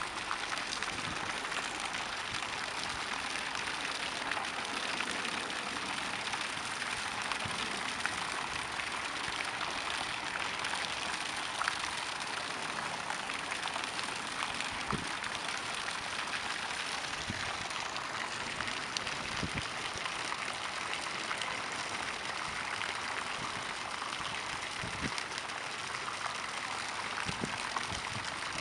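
A steady, even rushing hiss, with a few faint ticks scattered through it.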